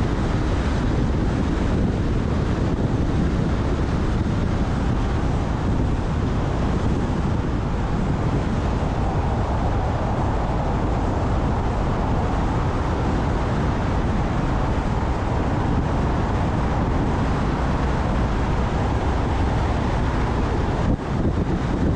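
Steady road and wind noise of a car driving. The noise shifts slightly about eight seconds in as the car moves from an open-sided gallery into a road tunnel, and dips briefly near the end.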